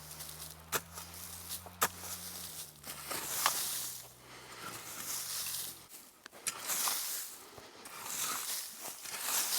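Dry leaf litter being scraped and swept aside by hand to clear ground for a campfire, in repeated rustling strokes, with a few sharp twig clicks near the start.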